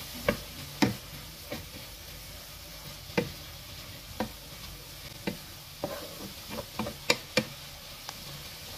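Julienned carrots, sweet potato and onion sizzling in a nonstick frying pan while a wooden spoon stirs them. Irregular knocks and scrapes of the spoon against the pan, a cluster of them about six to seven and a half seconds in.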